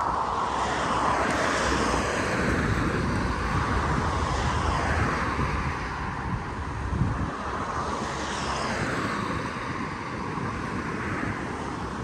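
Wind rumbling on the microphone, with a broad whooshing noise that swells and fades every few seconds.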